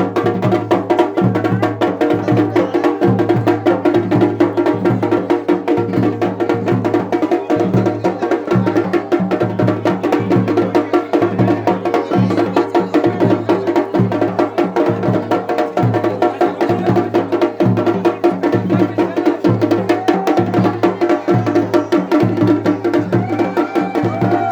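Music with fast, dense drumming over steady held tones underneath, keeping an even beat throughout.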